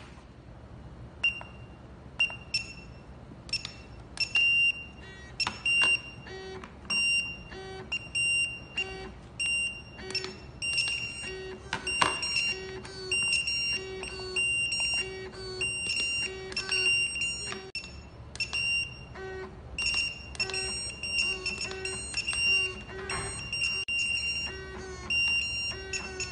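Restaurant coaster pagers alerting: many short, high electronic beeps repeating over and over, several pagers overlapping, with a lower pulsing tone about twice a second. Sharp clicks of the plastic pagers being handled and set down are scattered through it.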